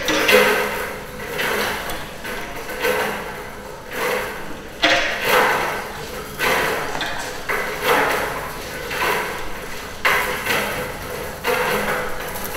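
A chain of large steel coil springs being jerked and stretched, giving metallic clanking twangs about every second and a half, each followed by a ringing tail.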